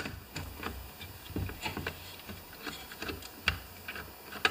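Screwdriver turning a screw at a chainsaw carburetor, with metal parts handled: irregular light clicks and taps, and one sharper click about three and a half seconds in.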